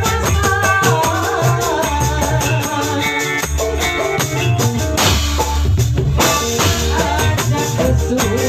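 Fast rhythmic music: a hand-played tambourine jingling steadily over drums, bass and a melodic line, with a brief noisy wash about five seconds in.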